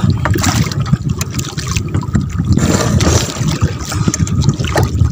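Water splashing and sloshing close to the microphone, with many small irregular knocks and clicks.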